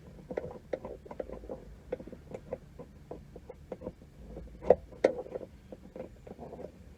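Irregular small clicks and knocks of hands working on a car's plastic interior trim around the centre console, with one sharper knock a little before five seconds in.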